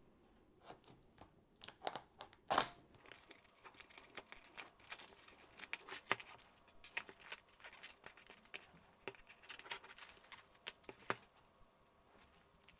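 Clear plastic shrink wrap being slit with a craft knife and torn and peeled off a cardboard kit box, crinkling and crackling irregularly, with one sharp crack about two and a half seconds in.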